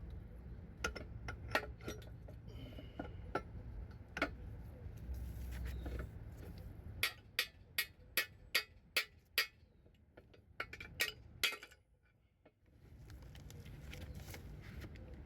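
Light metal-on-metal clinks and taps from five-speed manual transmission parts being worked on, with a quick run of about ten evenly spaced taps near the middle.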